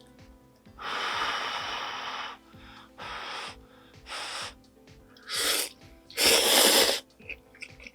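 Ramen noodles being slurped from a spicy squid jjamppong, in five airy bursts: a long slurp of about a second and a half, then four short ones, the last the loudest, over soft background music.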